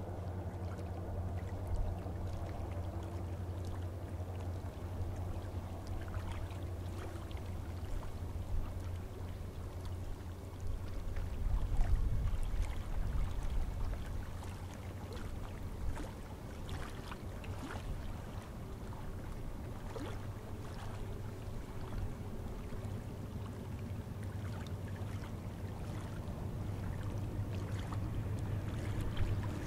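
Low, steady drone of a distant diesel engine, swelling briefly about twelve seconds in, with faint scattered ticks over it.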